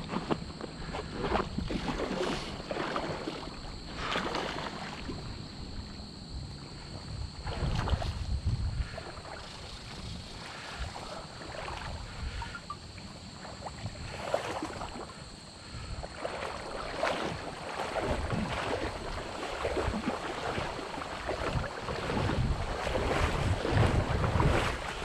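Wind buffeting the microphone in uneven gusts over moving river water. Near the end the water swishes louder, as it does when someone wades through shallow current.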